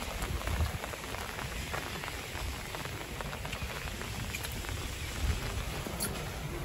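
Steady rain pattering on wet pavement, a dense scatter of small drop ticks over a low rumble.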